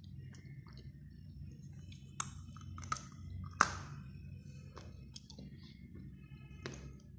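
Lumps of dry grey clay clicking and cracking against each other in a plastic bowl: a handful of sharp clicks, the loudest about three and a half seconds in, over a low steady hum.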